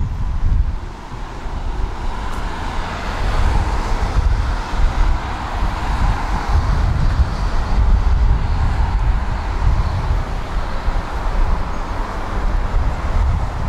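Vehicle noise: a steady low rumble with a hiss that builds about two seconds in and then holds.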